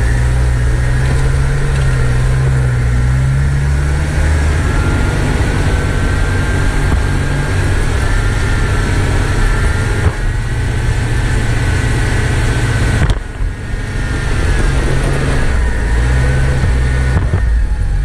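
1997 Jeep Wrangler engine running steadily, with a brief dip in level about thirteen seconds in.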